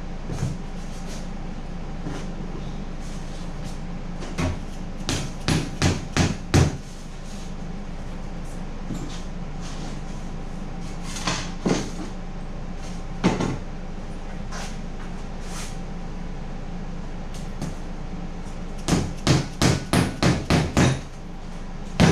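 Mallet blows tapping glued foam-board gunwale strips down onto a foam kayak hull. A run of about six knocks comes a few seconds in and a couple of single knocks follow. Near the end comes a quicker run of about eight.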